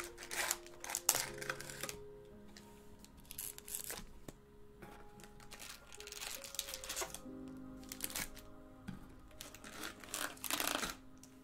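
Foil card packs crinkling in several short bursts as they are handled and pulled out of a cardboard box, over quiet background music.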